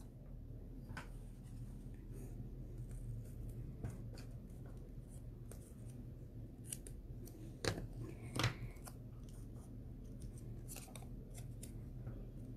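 Small craft scissors snipping strips of foam tape: scattered soft snips and clicks, with two sharper snips a little past the middle.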